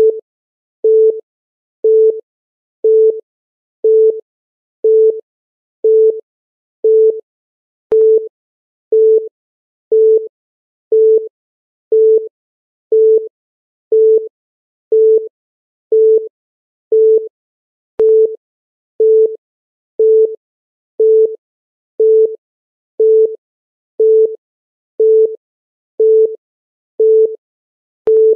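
Countdown timer beep: one short, low-pitched electronic tone sounding exactly once every second, with silence in between, marking each second as the timer counts down. A faint click comes about every ten seconds.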